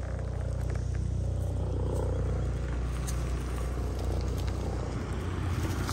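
A car driving past on a forest track: a steady low rumble of engine and tyres that swells a little and then eases.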